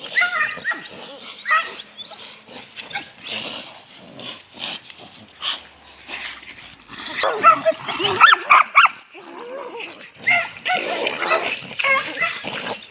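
Dogs barking, yelping and whining in quick succession, with louder flurries of calls around the middle and again near the end.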